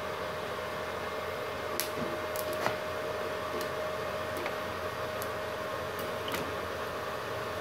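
Steady hum and thin whine of a small 450-watt MultiPro inverter welding machine running, with a scattering of sharp irregular ticks as the TIG torch's tungsten is touched and scratched on the steel to strike the arc in manual argon welding.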